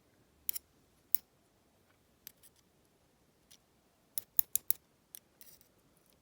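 Sharp metallic clicks and ticks from small padlock parts and tools being handled while the lock is taken apart: scattered single clicks, then a quick run of four about four seconds in.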